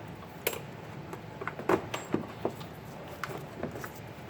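Scattered light clicks and knocks of parts being handled, about a dozen over a few seconds, the sharpest near the middle.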